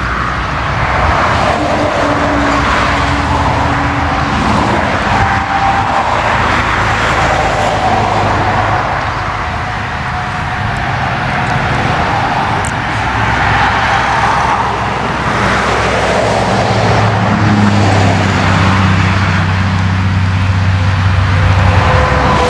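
John Deere combine harvester running while cutting grain: a steady engine hum under a broad rushing noise, dipping slightly about halfway through and building again toward the end.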